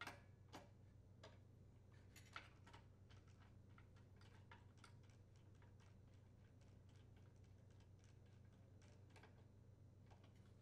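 Faint, irregular clicks of a screwdriver and metal engine parts as a shoulder bolt is driven in to secure the air vane on a Briggs & Stratton small engine, over a low steady hum. The sharpest clicks come at the very start and about two seconds in.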